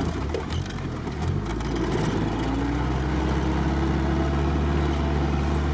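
Off-road vehicle's engine heard from inside the cab while driving on a muddy track: a steady low engine note that picks up slightly in revs about two seconds in, then holds.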